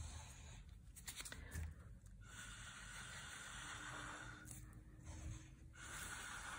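Breath blown through a plastic drinking straw onto wet acrylic paint, a faint hissing puff lasting a couple of seconds, then another near the end. The blowing pushes the cell activator out over the colours to form cells.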